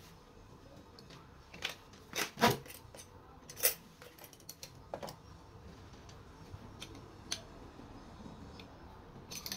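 Small clicks and metallic clinks from handling a stripped spinning reel and a small spanner on a work mat: a cluster of sharp knocks in the first few seconds, then sparser light clicks as the spanner is fitted to the rotor nut.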